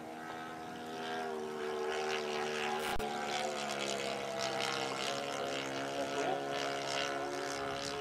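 Saito FA-62 four-stroke glow engine of an RC airplane in flight, running steadily and turning a 13x6 propeller. Its droning note rises a little and grows louder about a second in, then shifts slightly as the plane flies overhead. A brief sharp knock comes near the middle.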